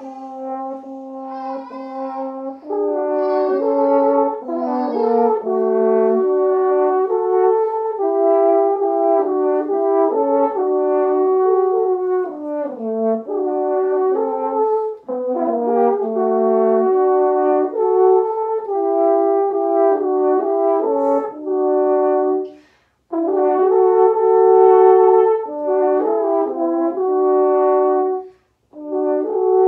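Two French horns playing a duet, holding sustained notes in two parts that move in harmony. The playing breaks off briefly twice, once a little past two-thirds of the way through and again near the end.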